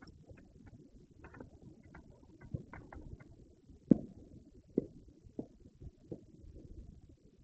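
Distant fireworks booming: several dull thuds in the second half, the loudest about four seconds in.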